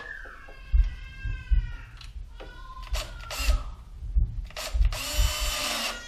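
Handheld power drill driving the clamp screws on a check valve's rubber coupling, running in several short spurts; the motor's pitch sinks as a screw tightens, and near the end it runs in one longer burst.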